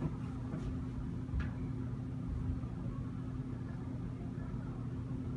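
Steady low mechanical hum of room background, with a faint click about a second and a half in.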